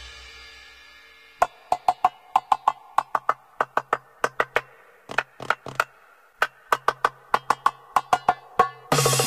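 A sparse hand-percussion break in belly-dance music: short dry strikes in a quick, irregular rhythm, starting after the previous music dies away and pausing briefly around the middle. The full music comes back in loudly near the end.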